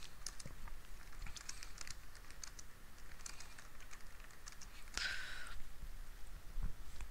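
Typing on a computer keyboard: an irregular run of quick key clicks, with a short hiss about five seconds in.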